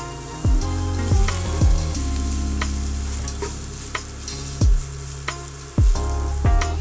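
Diced onion and garlic sizzling in olive oil in a nonstick pan, stirred with a plastic slotted spatula. Background music with a low thumping beat and held bass notes plays under it and is the loudest part.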